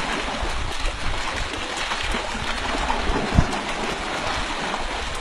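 Water rushing and splashing through a narrow wooden channel, a steady gush, with a single knock about three and a half seconds in.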